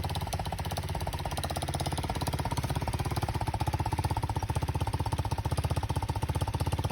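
125cc engine on a custom chopper bicycle idling steadily with a rapid, even putter, warming up after a cold start and idling nicely.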